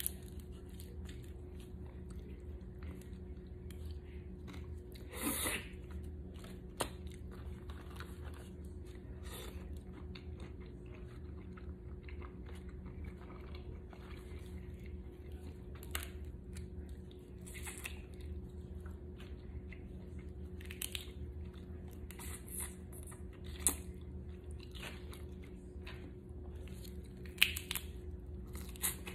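Boiled crawfish being peeled and eaten close to the microphone: shells cracking and snapping between the fingers, with chewing, in irregular short crackles and a few sharper snaps over a steady low hum.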